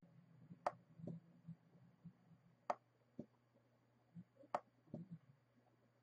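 Push switch of a rotary encoder's knob clicking as it is pressed three times, about two seconds apart, each press toggling a setting on the Arduino between on and off. Each sharp click is followed a moment later by a fainter, duller one.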